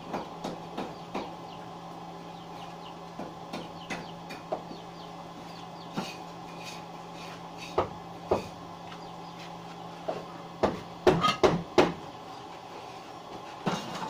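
Scattered knocks and taps from carpentry work on wooden boards, with a cluster of louder knocks about eleven seconds in. Under them runs a steady low hum that stops shortly before that cluster.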